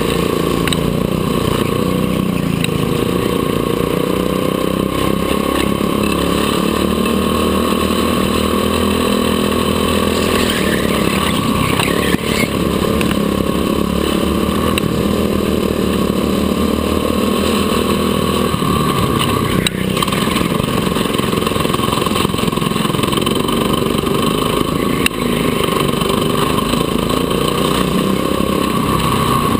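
Go-kart engines running hard on an indoor track, the pitch climbing as the kart accelerates down a straight and dropping as it backs off into the corners, over and over.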